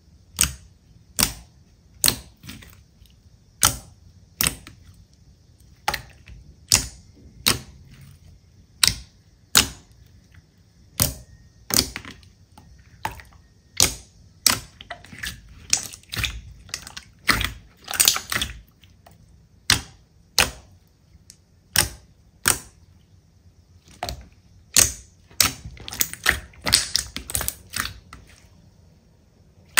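Slime being squeezed and pressed by hand, giving sharp popping clicks about one to two a second, coming faster and closer together near the end.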